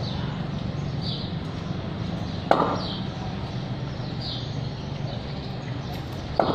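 Two sharp knocks, one about two and a half seconds in and one near the end, over a steady low hum and a short, falling high chirp that repeats about every second and a half.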